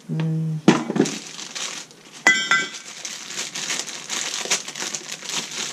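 Cardboard box of a new wheel bearing being torn open, then the plastic bag around the bearing crinkling as it is unwrapped, with sharp clicks and crackles throughout. A short low hum comes right at the start.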